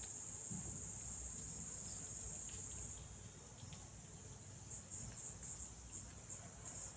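Insects trilling: a faint, steady, high-pitched trill that drops out about three seconds in and comes back as short broken pulses near the end.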